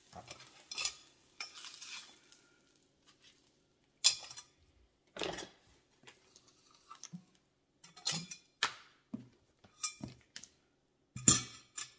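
Spatula scraping and knocking against a stainless steel frying pan and a plate while fried eggs are served out. It comes as a series of separate clanks and scrapes; the loudest is about four seconds in and another is near the end.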